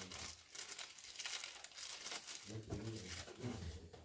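Rustling and crinkling handling sounds in quick irregular bursts, with a low voice sounding briefly in the second half.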